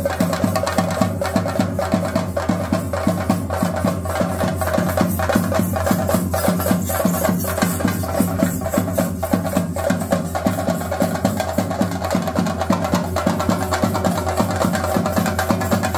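Chenda drums beaten in a fast, continuous rhythm, with a steady held tone underneath.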